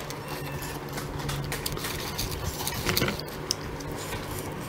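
Metal spoon clinking and scraping against a stainless steel tray as wet oyster meat in spicy dressing is picked up: scattered small clicks, the loudest about three seconds in, over a low steady hum.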